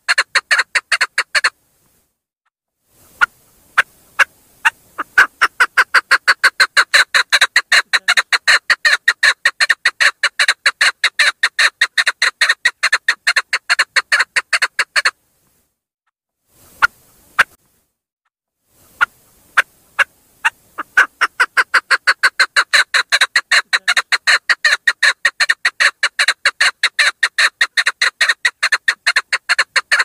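Female chukar partridge calling in long, fast runs of short, evenly spaced chuk notes, several a second. The runs break off about a second and a half in and again about fifteen seconds in, each time followed by a few spaced single notes before the run picks up again. This is the female's call that draws male chukars.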